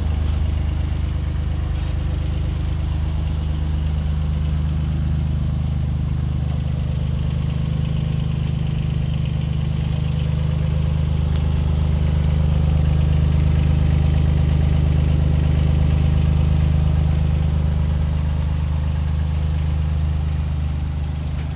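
Takeuchi TB016 mini excavator's diesel engine idling steadily.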